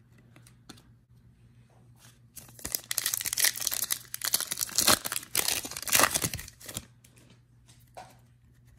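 The foil wrapper of a 2021 Illusions football trading-card pack being torn open by hand: crinkling and ripping that starts a couple of seconds in and lasts about four seconds.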